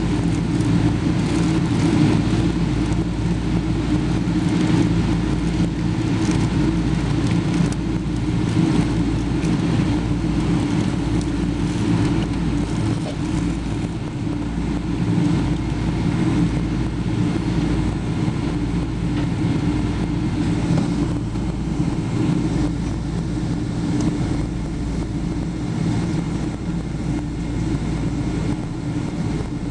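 Boeing 777 jet engines running at taxi power as the airliner lines up on the runway, heard from inside the passenger cabin as a steady low drone.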